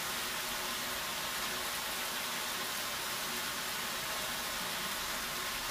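Steady, even sizzling of vegetables frying in a pot on the hob.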